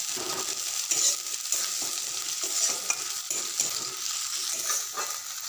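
Chopped onions and garlic paste sizzling in oil in a metal kadai, stirred with a metal spatula that scrapes the pan about twice a second.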